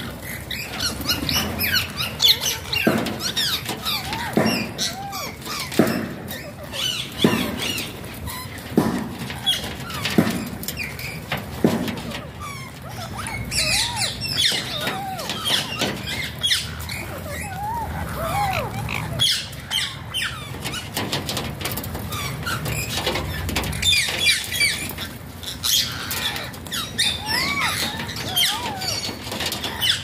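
A flock of parakeets chattering and squawking while feeding, with many overlapping short chirps and squeals. Louder harsh calls come about every second and a half during the first half.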